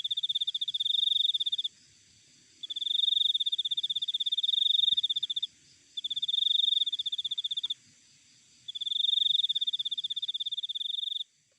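Cricket trilling in long, rapidly pulsed high-pitched bouts of about two to three seconds, with short pauses between them, over a fainter steady high hiss.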